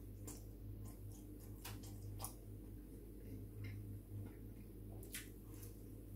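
Close-up chewing of cold leftover pizza: soft wet mouth clicks and smacks at irregular moments, over a steady low hum.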